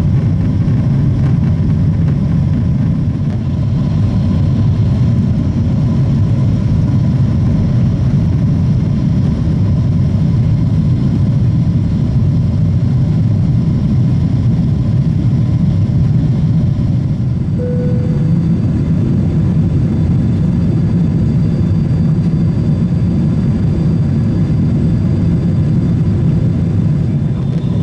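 Boeing 777-200ER cabin noise in the climb: its two General Electric GE90 engines at climb thrust and the rush of air along the fuselage make a loud, steady, deep roar. A short faint tone sounds about two-thirds of the way through.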